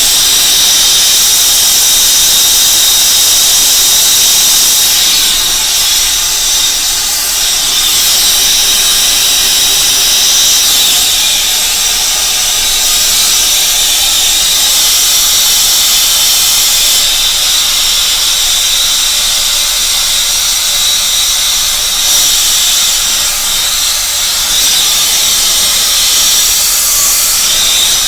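Handheld gas torch burning with a steady, loud hiss while heating 3/4-inch pipe for a solder joint.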